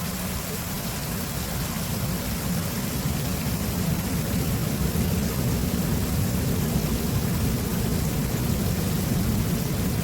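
Steady rushing of flowing water, with a strong low rumble, swelling slightly over the first few seconds and then holding even.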